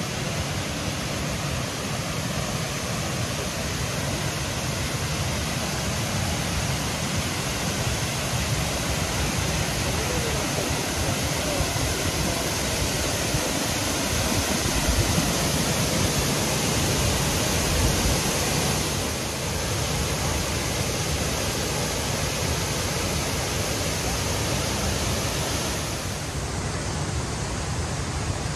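Water falling down a large artificial waterfall cascade, a steady even rush. It grows louder about halfway through and drops off a couple of seconds before the end.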